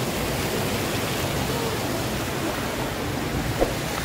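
Steady rushing of a mountain stream flowing over rocks, with one short knock about three and a half seconds in.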